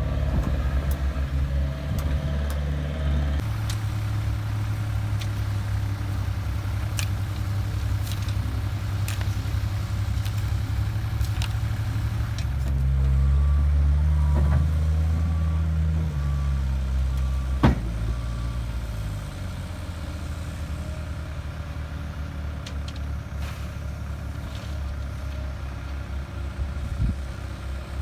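Diesel engine of heavy road-construction machinery running steadily, speeding up under load for a few seconds about halfway through while a reversing alarm beeps. A single sharp knock follows soon after.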